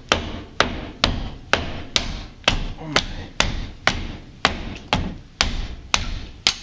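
A hammer striking a door frame over and over, a steady run of sharp blows about two a second.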